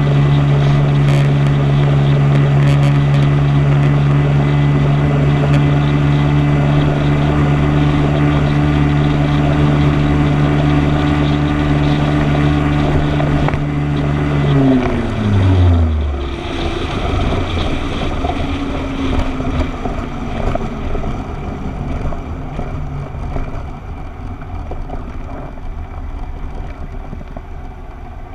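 Motorcycle engine holding a steady cruising note, with wind noise on the microphone. About halfway through the pitch falls as the throttle is rolled off, and the engine then runs quieter at lower speed under wind and road noise.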